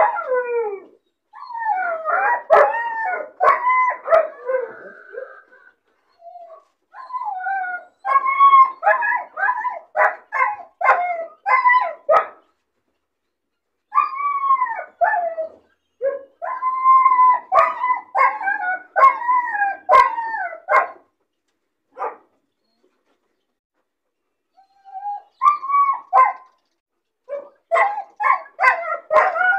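Caged black-and-tan puppy crying: wavering, howl-like whines mixed with short sharp yelps and barks, coming in runs with pauses of a second or more between them. It is the distress crying of a puppy shut in a cage alone.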